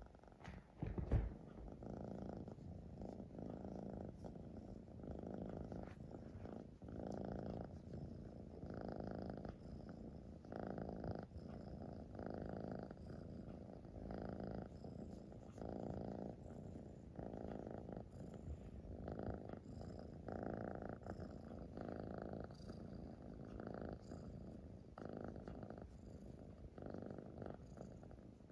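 Siamese cat purring steadily while being scratched under the chin, the purr swelling and fading in an even rhythm with each breath, about once a second. A brief low thump about a second in is the loudest moment.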